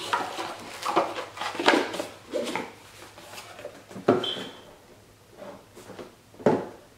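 Boxed cosmetics packaging being handled and set down: a series of about six knocks and taps, with a short high ring about four seconds in.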